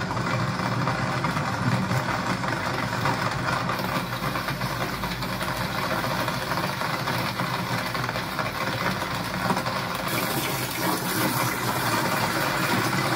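A vehicle's engine running steadily with road noise as it moves along, a brighter hiss joining about ten seconds in.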